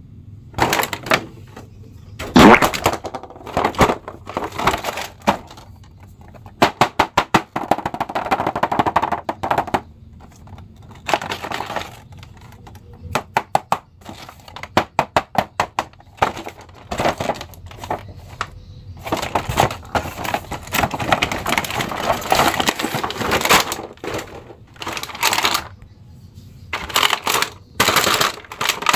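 Clear plastic blister packaging crackling and clicking as action figures are handled and pushed about in their moulded tray, with runs of rapid sharp clicks and occasional knocks.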